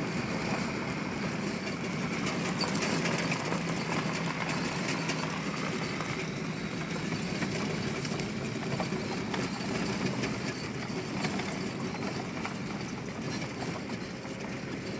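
Vehicle driving on a dirt and gravel road, heard from inside the cab: a steady engine hum and road noise, with many small clicks and knocks from the tyres on the rough surface.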